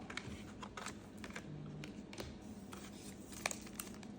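Faint scattered taps and slides of trading cards being flipped through by hand, with one slightly louder tap about three and a half seconds in.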